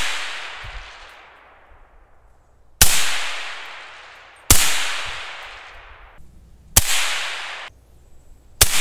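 Suppressed 300 Blackout short-barreled rifle firing supersonic 110-grain AAC rounds through a YHM R9 suppressor, heard from in front of the muzzle. Four sharp shots come roughly two seconds apart, each followed by a long echo trailing away.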